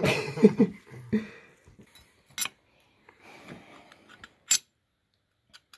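Steel internal parts of a limited-slip differential being handled and seated in the case: rubbing and scraping in the first second, then sharp metallic clinks about two and a half and four and a half seconds in.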